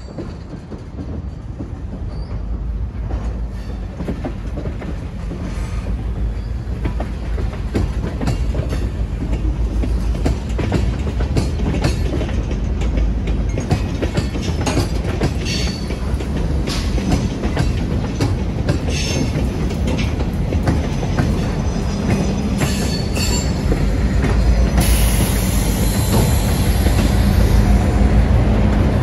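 Diesel freight train rolling past, growing steadily louder, its wheels clicking over rail joints. A high wheel squeal joins near the end.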